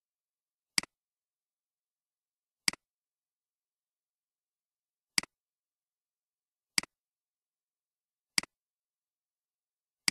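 Computer mouse button clicking six times, single sharp clicks one to two and a half seconds apart, with dead silence between.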